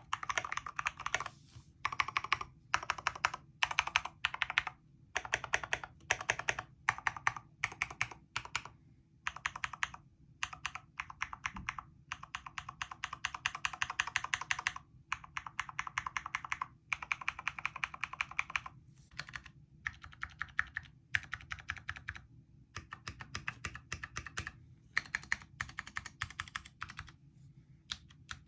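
Typing on a mechanical keyboard with tactile switches: runs of rapid keystrokes broken by short pauses.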